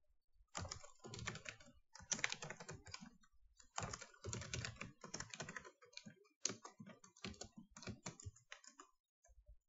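Typing on a computer keyboard in several quick bursts with short pauses between, a password being entered and then typed again to confirm it.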